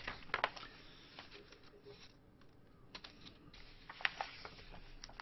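Pages of a hundred-year-old bound magazine volume being handled and turned by hand: soft paper rustling with a few short crackles and taps spread through.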